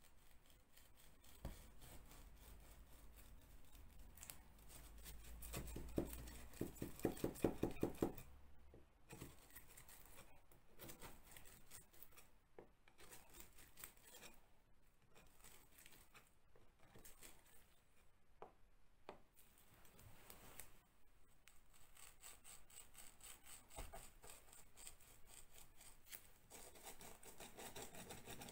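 Quiet scraping and rubbing of a hand tool against a cracked plaster wall, with scattered small clicks. About six seconds in comes a brief run of louder, quick scraping strokes, roughly four a second.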